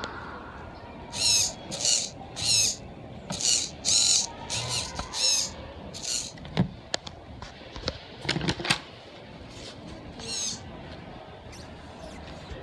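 Digital throttle servo driving the nitro engine's throttle linkage back and forth in short bursts, about seven in quick succession, then one more near the ten-second mark. A few sharp clicks fall in between.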